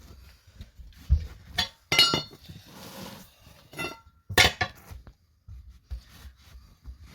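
Metal clanks and clinks on a rusty steel wheel rim as its bead seat is cleaned, a handful of sharp strikes that ring briefly, the loudest about two and four and a half seconds in, with a short spell of scrubbing between them.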